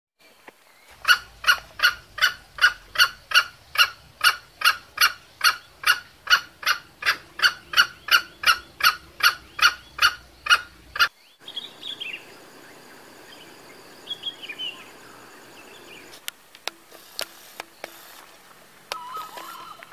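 A junglefowl calling in a fast, even run of loud notes, about two and a half a second, for some ten seconds until it cuts off abruptly. Then fainter chirps, a few clicks, and near the end a short crow from a junglefowl rooster.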